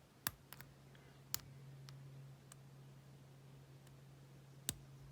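Faint, sharp clicks of a steel lock pick working the pins of a Eurospec MP6 six-pin euro cylinder: three clearer clicks, just after the start, about a second in and near the end, with a few fainter ticks between, over a low steady hum.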